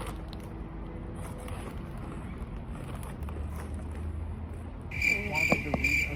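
A low, steady rumble. About five seconds in, a high pulsing trill of chirping insects such as crickets starts abruptly, with a brief voice over it.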